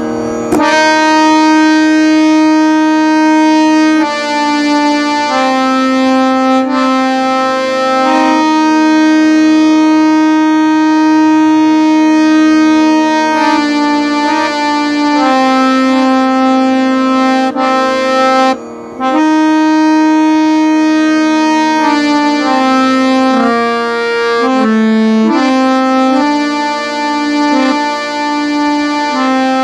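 Harmonium playing a slow melody in Raga Yaman, held reed notes changing every second or two, with a brief break a little under two-thirds of the way through.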